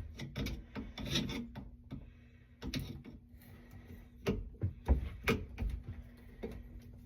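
Irregular scraping and rubbing with several sharp knocks and clicks from loosening the dishwasher hose connection on a garbage disposal under a kitchen sink.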